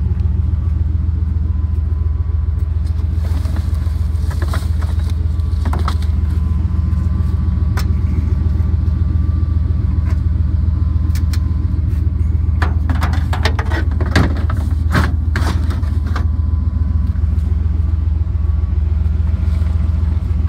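Vehicle driving along with a steady low engine and road drone, broken by short knocks and rattles about three to six seconds in and again around thirteen to fifteen seconds in.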